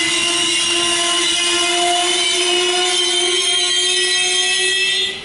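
Trenitalia Intercity train moving slowly along the platform with a loud, steady metallic squeal from its wheels, several high tones sounding at once. The squeal cuts off sharply near the end.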